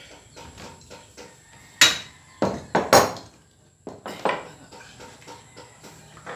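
Metal clanks as a bicycle crankset and hand tools are set down on a wooden plank floor: a sharp clank about two seconds in, a quick run of three near the three-second mark, and one more a second later.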